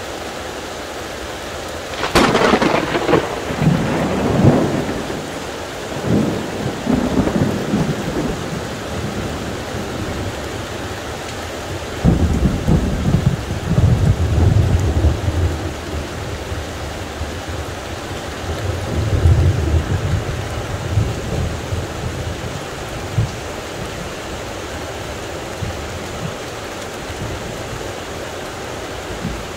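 Heavy thunderstorm: steady heavy rain with thunder. A sharp crack about two seconds in rolls into a long rumble, and two more deep rumbles follow, one starting about twelve seconds in and another around twenty seconds.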